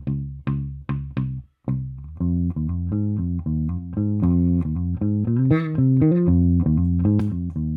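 Fender Jazz Bass played through a Mad Professor Forest Green Compressor pedal into a Gallien-Krueger bass amp: a few separate plucked notes, a short break, then a busier run of notes, with one brighter, sharper-attacked passage about halfway through.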